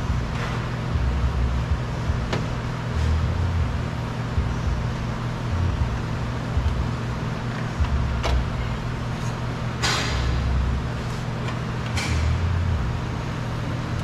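A few sharp clicks and knocks of parts being handled inside a car door while the window glass is lifted out, over a steady low rumble.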